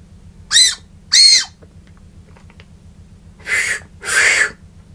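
Two short, shrill whistle notes blown through a Coris Fue Ramune whistle candy held between the lips, each note arching slightly up and down in pitch. Near the end come two breathy puffs of air with no clear note.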